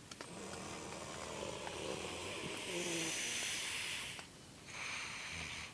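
A sleeping man snoring: one long snoring breath, low and buzzing at first, then hissy, stopping about four seconds in. After a short pause the next breath begins near the end.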